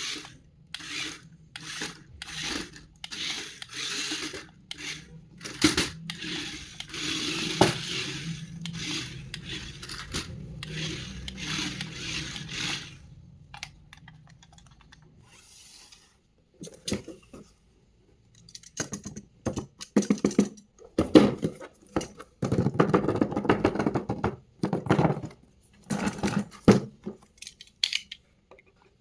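Handling noises from unboxing toys: repeated scraping, rubbing and rustling of packaging and plastic parts, with a low steady hum underneath for the first half. After a short lull, louder bursts of rustling and scraping follow.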